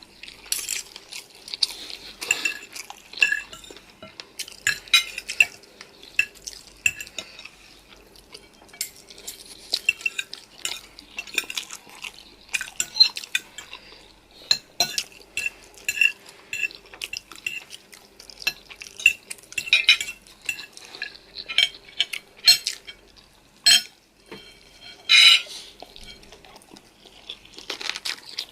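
Metal cutlery clinking and scraping against a dish of noodles: many irregular sharp clinks, each with a short high ring.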